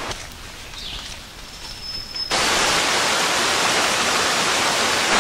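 Rushing water of a waterfall, a steady loud roar that cuts in suddenly about two seconds in, after a quieter stretch of softer water noise.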